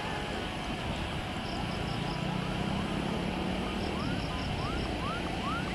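Steady, distant jet engine noise from a Citilink Airbus A320 on final approach: a low hum under a broad hiss. In the second half a run of short rising chirps, about two or three a second, comes in over it.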